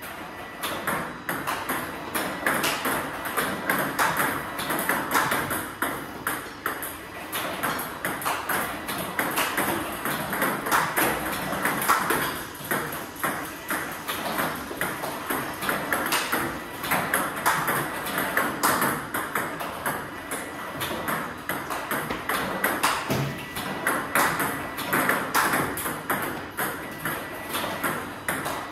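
Plastic table tennis balls (DHS D40+ three-star) clicking rapidly and irregularly as they are fired by a ball robot, bounce on the table and are struck with a rubber-faced bat, as in a rally drill.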